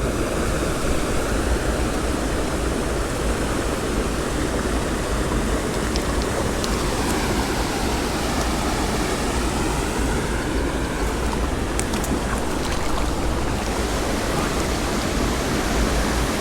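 Steady rush of running water from a small, riffled spring creek, heard close by.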